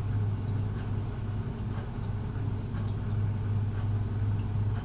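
Aquarium filter running: a steady low hum with faint trickling water.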